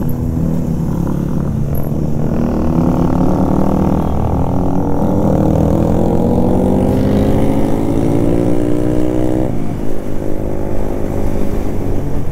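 Motorcycle engine running under way. About halfway through its pitch climbs steadily for several seconds as it accelerates, then drops abruptly and runs steadily at a lower pitch.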